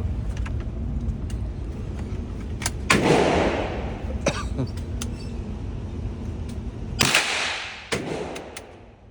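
.22 LR bolt-action rifle fired twice, about four seconds apart, each shot followed by a short echo, with a few lighter clicks in between.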